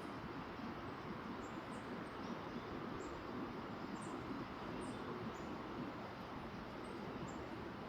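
Small birds chirping: about a dozen short, high chirps scattered through, over a steady background hiss.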